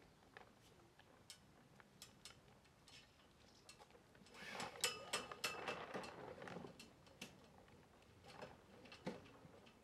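Faint scattered clicks and taps of dinghy rigging being handled, with a louder run of small metal fittings clinking and briefly ringing about halfway through.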